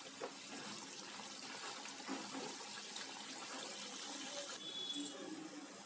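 Namak pare deep-frying in oil in a steel kadhai on a low flame: a steady, quiet sizzle and bubbling of the oil, with the pieces stirred by a wooden spatula.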